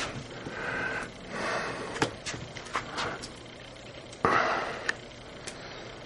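Light footsteps and knocks on wooden porch boards, with soft breathy sniffs close to the microphone; the loudest, a sharp sniff, comes about four seconds in.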